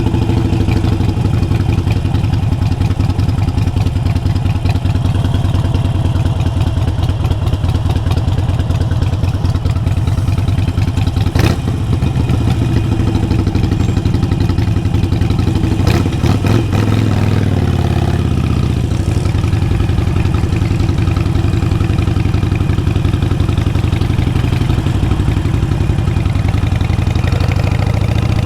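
Harley-Davidson Sportster 883 Iron's air-cooled V-twin running through a Vance & Hines exhaust while riding. Two sharp clicks come midway, then the engine note drops and settles lower, climbing again near the end.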